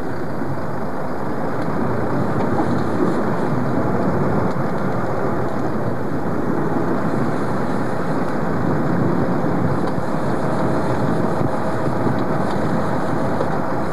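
Sport-fishing boat's engine running steadily, with sea and wind noise; a faint steady whine comes in near the end.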